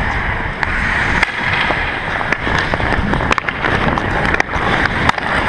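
Ice hockey skates scraping and gliding on the rink ice, with a low wind rumble on the player-worn camera and scattered sharp clacks of sticks and puck.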